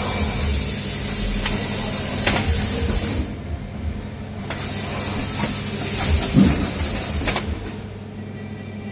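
Compressed air hissing out of pneumatic packaging machinery in two long blasts of about three seconds each, over a steady low hum, with sharp clicks and knocks of the mechanism moving.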